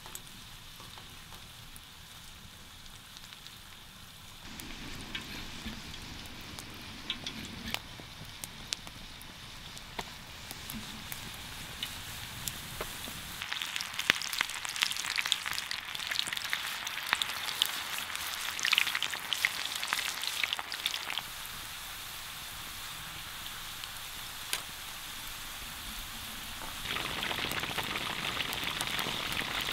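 Hot oil sizzling and spitting over a campfire as sliced potatoes sauté in a frying pan and beer-battered fish deep-fries in a metal mess tin. A spell of dense, sharp crackling comes around the middle, and a louder steady sizzle sets in near the end.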